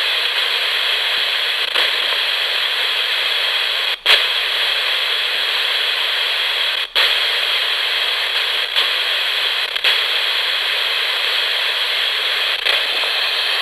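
Ghost-box radio with no antenna scanning between stations, giving a steady hiss of white noise with two brief dropouts, about four and seven seconds in.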